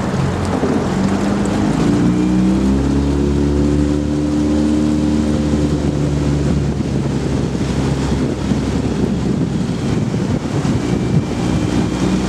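A small motorboat's engine running, its pitch rising over the first few seconds and then holding steady, with wind rumbling on the microphone.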